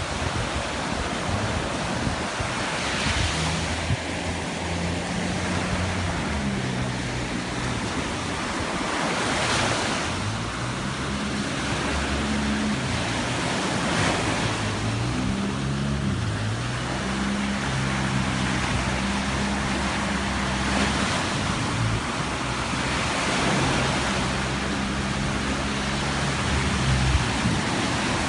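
Ocean surf breaking and washing up the beach, with gusts of wind on the microphone. Underneath runs a faint low bass line of stepping notes.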